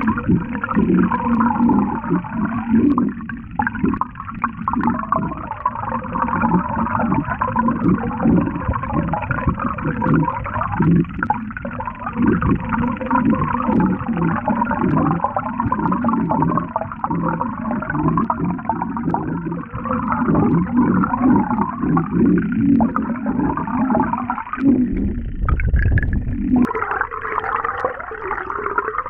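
Z-Man Chatterbait Project Z bladed jig being retrieved underwater: its metal blade vibrates rapidly against the jig head, giving a dense, fast rattling buzz as heard underwater. Near the end a brief low rumble breaks in and the rattle changes.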